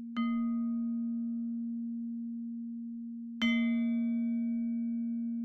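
GarageBand's toy glockenspiel instrument, transposed down, playing two slow notes of a clock chime tune, a few seconds apart. Each note strikes brightly, its upper overtones fade, and a low tone keeps ringing underneath.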